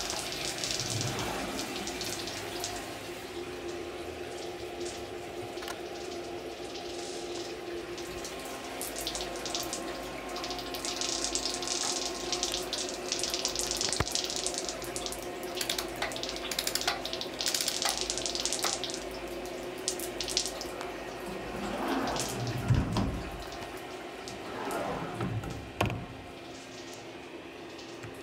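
Fadal CNC vertical mill cutting an aluminum footpeg: a steady spindle whine of several held tones under a spraying hiss of coolant, with chips pattering against the enclosure. A few louder surges come in the last few seconds.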